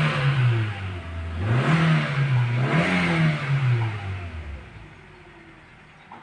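Hyundai Elantra's engine revved three times, the pitch climbing and falling back with each blip of the throttle, then quietening about four and a half seconds in.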